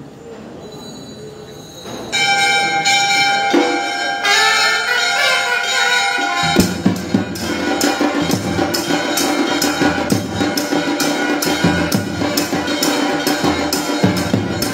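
Temple bells ringing for a puja, starting about two seconds in; about six seconds in, drums and percussion join with a steady beat of about three strokes a second.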